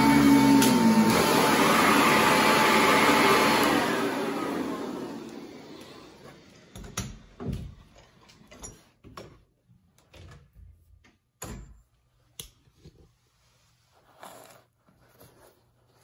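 Sanitaire commercial upright vacuum running, then switched off about a second in, its motor winding down and fading over the next few seconds. Scattered light knocks and handling sounds follow.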